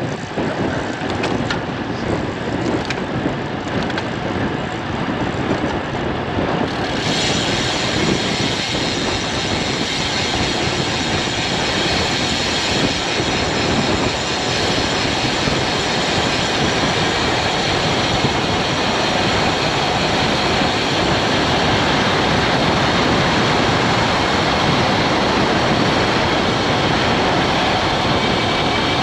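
Wind rushing over an action camera's microphone on a road bike moving at speed. The rush turns brighter about seven seconds in and grows slowly louder after that.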